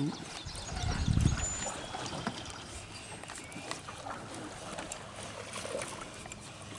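Quiet outdoor background with a dull low thump about a second in and a few light clicks scattered through.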